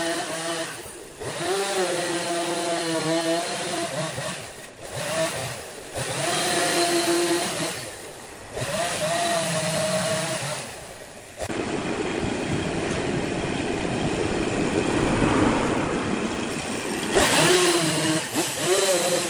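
Two-stroke Stihl chainsaw revving as it cuts into the end of a turned wooden post. The engine pitch rises and falls with the load and dips briefly several times between cuts. In the middle there is a longer stretch of steady, rough cutting noise in which the engine tone is hidden.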